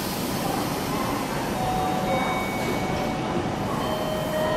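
Several Meitetsu express trains, 1000-series Panorama Super and 2200-series, running into a station platform, their running noise layered together. A few faint steady tones come and go over it.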